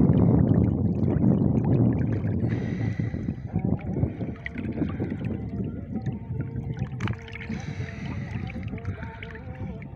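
Low rumbling wind and water noise on the microphone, loudest for the first couple of seconds and then fading, with one sharp click about seven seconds in.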